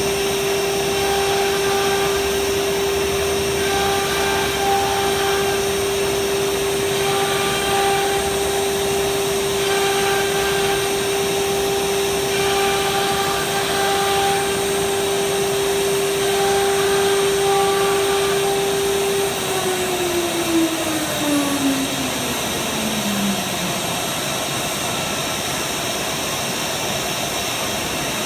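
CNC router spindle running with a steady high whine over a steady rushing noise, the sound swelling every few seconds. About two-thirds of the way through, the spindle spins down: its whine falls steadily in pitch over about four seconds and fades out, while the rushing noise continues.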